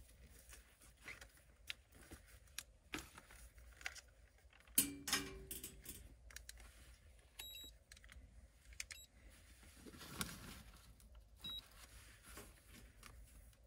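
Handling of a digital clamp meter: scattered clicks and knocks of the meter and its test leads, the loudest about five seconds in, and a few short high beeps from the meter in the second half.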